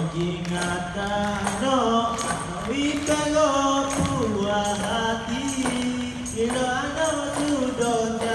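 Malay song performed live: a voice singing a long, sliding melody in held notes, with light percussion hits keeping time.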